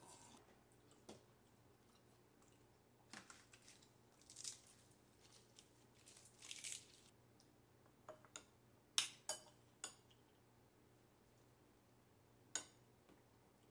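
Faint handling sounds at a table: crisp rustling and crackling as a romaine lettuce leaf is pulled apart, then a few sharp clicks of a metal spoon against a bowl as rice is scooped onto the leaf.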